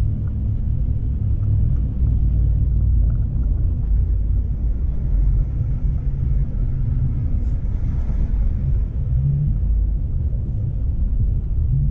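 Steady low rumble of a car driving on the highway: road and engine noise.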